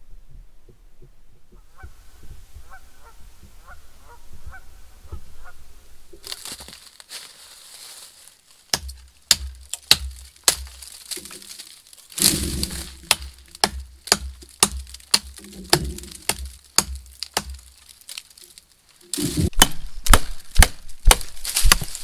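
Faint repeated honking bird calls, then a long run of sharp cracks and crunching thumps, irregular and loudest near the end.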